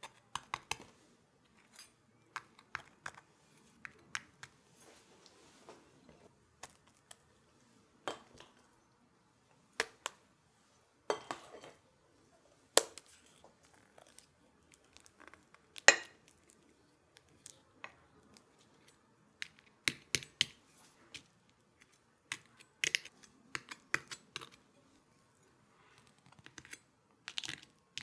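Metal spoon and fork clinking and scraping against ceramic bowl and baking dish as mascarpone cream is spread and ladyfingers are dipped in espresso; scattered sharp clinks with quiet gaps between.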